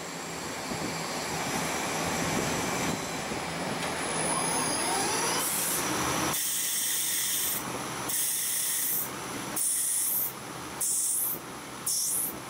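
CNC lathe cutting a spinning workpiece: the spindle and cut run as a steady machine noise, then from about halfway a series of short, high, hissy bursts, roughly one every second or so, as the turning tool takes its passes.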